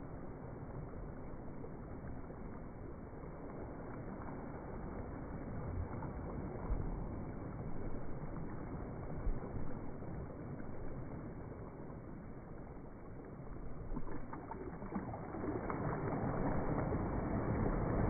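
Small, gentle waves lapping on a sandy shore, a steady wash that swells louder near the end as a wave breaks along the beach.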